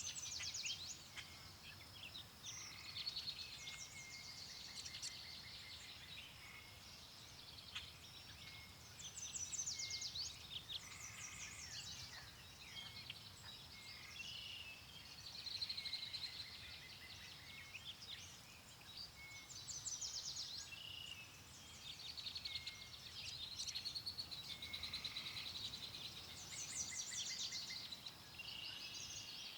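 Songbirds chirping and trilling in short, repeated phrases, over a soft, low wind noise.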